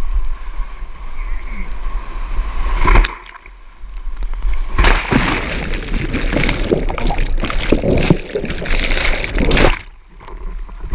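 Sea water surging and pouring over rocks around a whitewater kayak running a pour-over: a brief splash about three seconds in, then about five seconds of loud rushing whitewater that cuts off abruptly.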